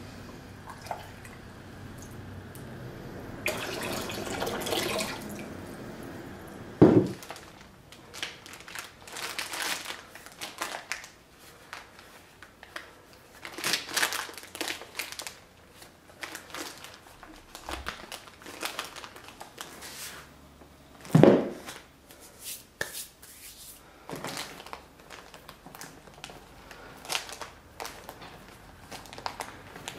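Water poured from a cup over a tooled leather holster and splashing into a plastic tub, casing the leather for forming, then the wet leather handled with scattered rustles and a plastic bag crinkling. Two sharp thumps stand out, about seven seconds in and again about twenty-one seconds in.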